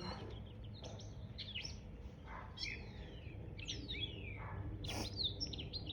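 Birds chirping and calling: quick chirps and several short falling whistled notes scattered throughout, over a steady low hum.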